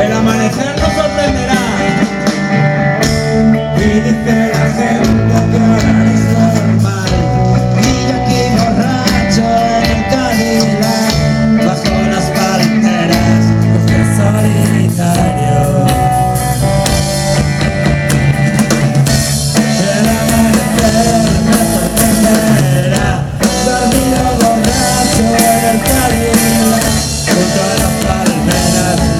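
Loud rock music with drums, guitar and singing.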